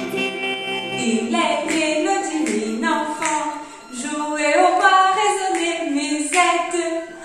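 A woman singing a cappella, entering about a second in over the last held notes of the preceding music.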